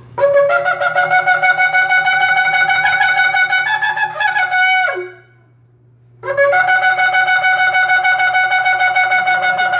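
Shofar blown in two long blasts, each starting on a short low note that jumps up to a held, wavering tone and ending with a drop in pitch. It is the third call, the call to battle and victory.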